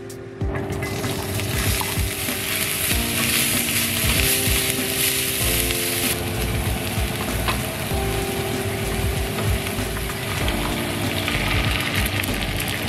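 Food sizzling steadily in a hot oiled frying pan, with a soft background melody underneath.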